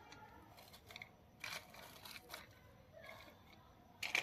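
Handling noises from toys and their packaging: scattered rustles and light clicks, with a brief crinkly burst about a second and a half in and a sharper, louder snap near the end.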